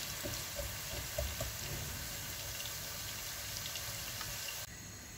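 Finely chopped onions sizzling in oil in a pot while they are sautéed until golden, with a few light taps of a wooden spatula in the first second or so. The sizzle drops to a quieter hiss near the end.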